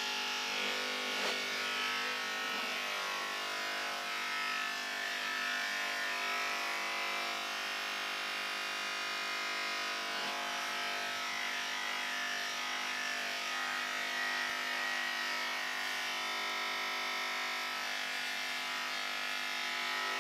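Corded electric hair clippers running steadily as they cut hair, a constant buzzing hum that switches on abruptly at the start.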